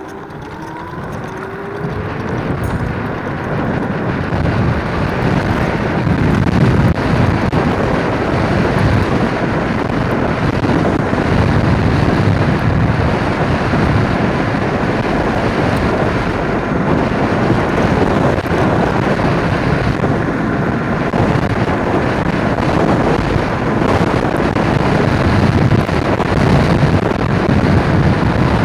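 Wind rushing over the microphone of a camera mounted on a MotoTec Thor dual-motor electric scooter at speed. It builds over the first few seconds as the scooter accelerates towards its top speed of around 40 mph, then holds steady. A faint rising whine is heard at the very start.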